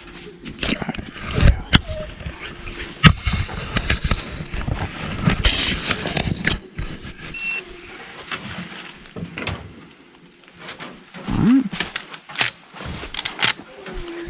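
Irregular knocks, clicks and rustling of people and hounds moving on foot through brush, with a short whine-like call that rises and falls about eleven seconds in.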